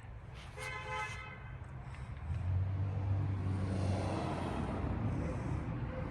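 A short car-horn tone about half a second in, then a vehicle engine rumble that grows louder about two seconds in and keeps running.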